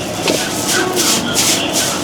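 Food frying at a street-food stall, with four short bursts of sizzling hiss over faint background chatter.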